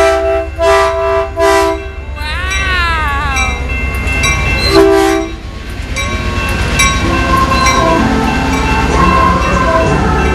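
Diesel locomotive's air horn sounding a chord in three short blasts, then one more blast about five seconds in, as the train passes close by. Between the blasts a high voice rises and falls briefly. Later the rolling cars rumble under a mix of shifting tones.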